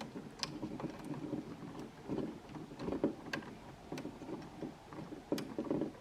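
Electrical wires and a wall switch being handled while wiring: uneven rustling with scattered sharp clicks, several a second.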